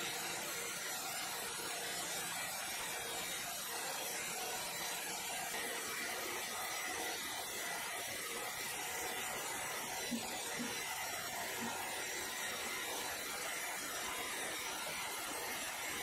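Horizontal band sawmill running with a steady, even hiss of the band blade and machinery, with one small knock about ten seconds in.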